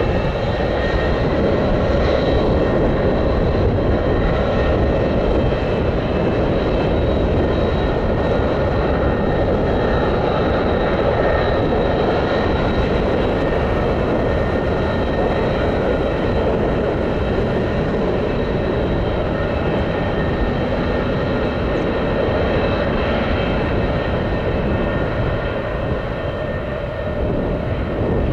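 The two Pratt & Whitney JT8D turbofans of a McDonnell Douglas DC-9-15(F) running at low power as it taxis: a steady rushing noise with a high whine over it. Near the end the sound dips briefly and then begins to rise.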